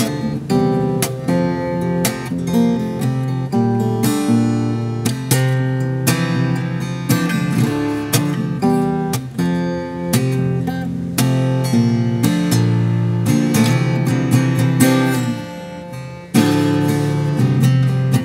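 Cort SFX Dao acoustic-electric guitar played fingerstyle, with ringing chords and plucked melody notes. The playing softens a couple of seconds before the end, then a loud chord comes in sharply.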